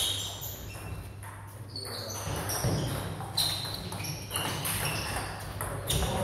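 Table tennis balls clicking off bats and the table: a handful of separate sharp, irregularly spaced knocks over a steady low hum.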